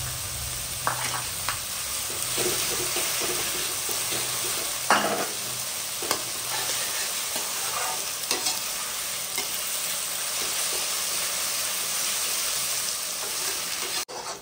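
Chopped onions with ginger and garlic sizzling in hot oil, stirred so that the utensil scrapes and knocks against the pan now and then, the loudest knock about five seconds in. The onions are frying toward golden brown.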